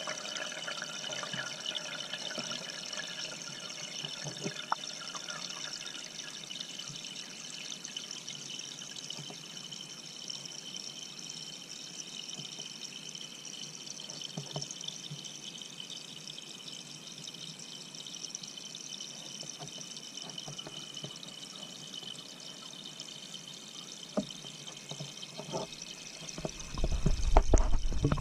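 Steady pouring and trickling of aquarium water heard through a submerged action camera's housing, with scattered faint clicks. Low rumble and a few thumps come in near the end.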